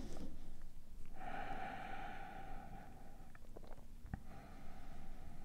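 A long, steady breath out through the nose, starting about a second in and lasting nearly three seconds, with a few faint clicks near its end.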